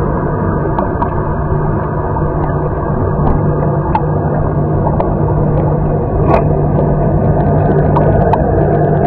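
Hammer-Head commercial pool vacuum running: a steady motor hum with scattered light clicks.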